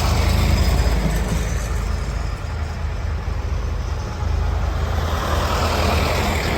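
Large engine running steadily close by: a deep, even hum with noisy rumble over it, growing a little louder about four seconds in.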